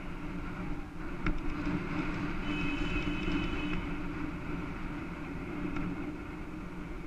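Steady rumble and rattle of a bicycle rolling over city asphalt, heard close up from the moving bike. There is a sharp click about a second in and a brief high whine a little later.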